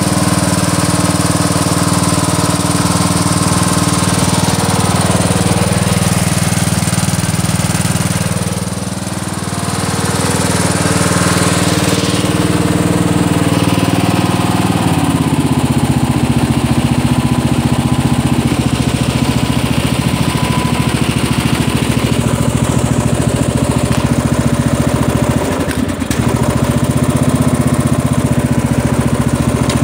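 Craftsman LT1000 riding mower's 16.5 hp I/C overhead-valve engine running steadily at low throttle. Its note changes about halfway through as the throttle lever is moved.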